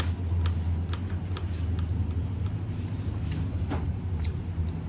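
Soft eating sounds of rice being mixed by hand on a plate and chewed, a few faint clicks, over a steady low hum.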